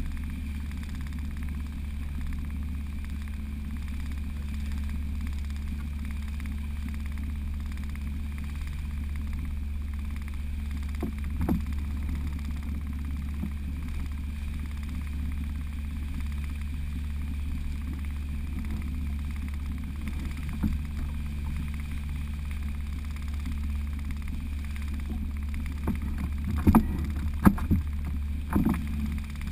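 Outboard motor running at a steady cruising speed as the boat moves through the water, a constant low hum. A few sharp knocks break through, mostly near the end.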